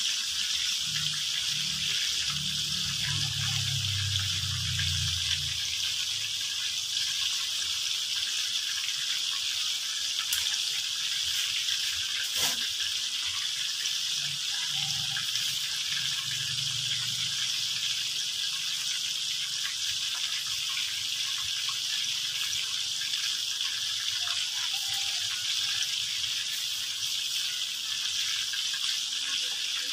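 Chicken pieces deep-frying in a wok of hot oil, with a steady hiss of sizzling oil. A single sharp click sounds about twelve seconds in.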